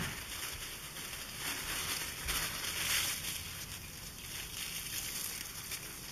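Charcoal briquettes burning with open flames in a kettle grill: a steady hiss with faint crackles, swelling a little twice.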